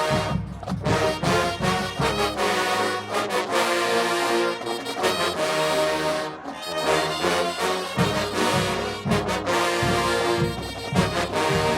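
Marching band playing: the brass section, trombones and trumpets to the fore, holds loud chords over a drumline. The drum strikes thin out in the middle and come back hard about eight seconds in.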